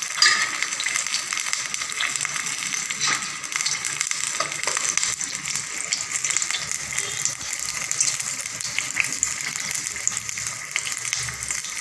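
Goat brains frying in oil and a little water in a stainless-steel kadai: a steady sizzle with scattered crackles.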